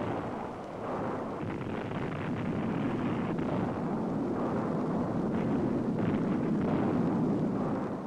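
Low, continuous rumble of a dynamite blast and the rock and dust it brings down a canyon wall. It slowly builds louder and falls away near the end, with no single sharp bang.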